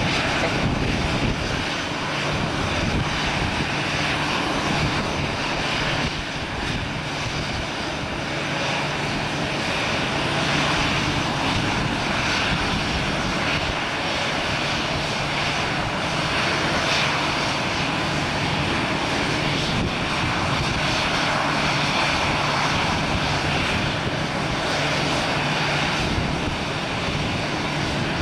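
Airbus A320-family airliner's twin jet engines running steadily at ground idle during pushback: a constant whine over a low rumble.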